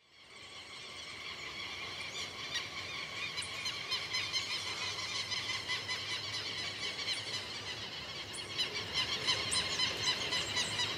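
Dense, steady outdoor chorus of small calling animals, fading in over the first two seconds, with a few short high chirps above it.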